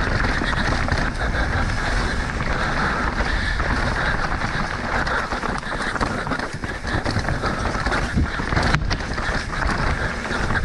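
Mountain bike descending a rough downhill trail at race speed. Wind buffets the microphone in a steady rush, and the tyres run over dirt and rock with many small knocks and clatters from the bumps.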